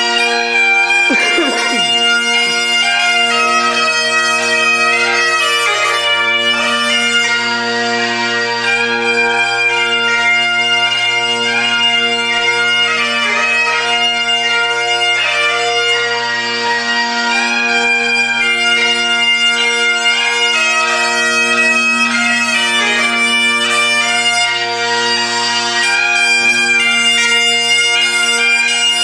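Bagpipes playing a tune over steady, unbroken drones.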